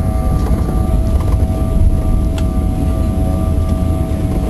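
Airliner heard from inside the cabin during the landing rollout, spoilers up: a loud steady low rumble of engines and wheels on the runway, with a steady engine whine on top.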